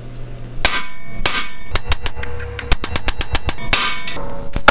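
Hammer blows on a steel punch driven into a drilled-out broken steel bolt seized in an aluminium control arm, each strike a sharp metal-on-metal clang with ringing. Several heavy single blows come with a quick run of strikes between them. The bolt does not move under these blows.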